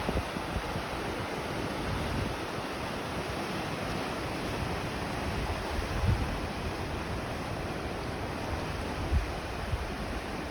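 Ocean waves surging and breaking in a steady rush, with gusts of wind rumbling on the microphone a few times.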